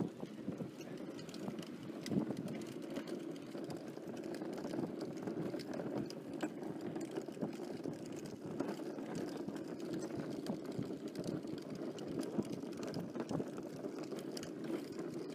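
Wheels of a pulled cart rolling over wet asphalt: a steady rumble with many small clicks and rattles.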